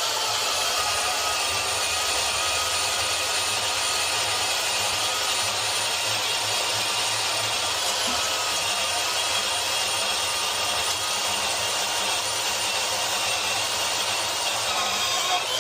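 A power saw running steadily as it cuts through a pipe.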